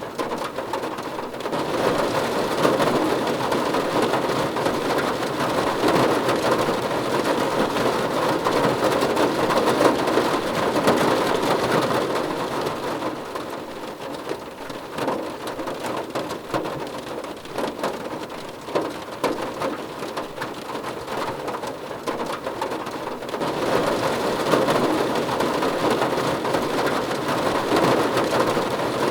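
Rain falling on a car's roof and windows, heard from inside the car: a dense patter of individual drops over a steady hiss. It eases off in the middle and grows heavier again near the end.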